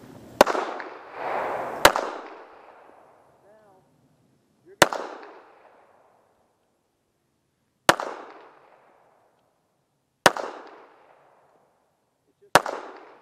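Six single shots from an M1911 pistol fired one-handed in slow fire, a couple of seconds apart, each with a short echo trailing off.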